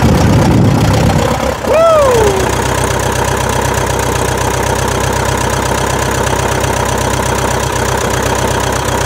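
1939 Piper J3 Cub's small air-cooled engine running after a hand-prop start. It is louder and rougher for the first second and a half, then settles into a steady, even idle. About two seconds in, a short whistle-like tone rises and falls over the engine.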